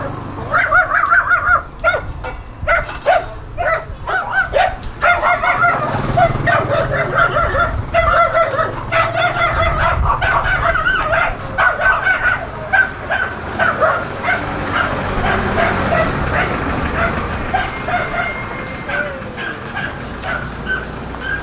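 A dog barking over and over in quick runs of barks, thinning out near the end.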